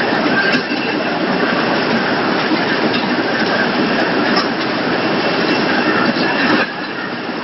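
Poultry processing line machinery running: a loud, steady mechanical din with occasional sharp clicks, dropping slightly in level near the end.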